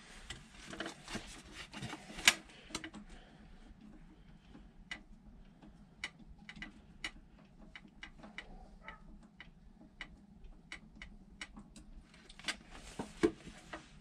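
Faint, irregular metallic clicks and ticks as the carburetor's drain bolt is worked loose with a socket over an empty metal can and gasoline starts to drain into it. One click about two seconds in and a small cluster near the end stand out.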